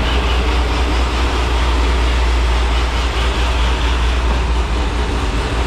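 A loud, steady low machine rumble with an even hiss over it, unchanging throughout.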